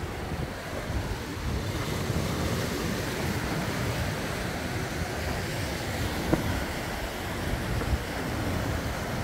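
Sea surf washing against a rocky shore, with wind buffeting the microphone. A single brief tap about six seconds in.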